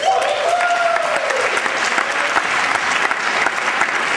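Audience applauding steadily, starting suddenly as a speech ends. A single long cheer falls in pitch above the clapping over the first second and a half.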